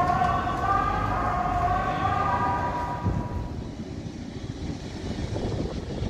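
Jet aircraft engines running as the plane taxis: a steady low rumble with a wavering whine for about the first three seconds, then a duller rush of engine and wind noise.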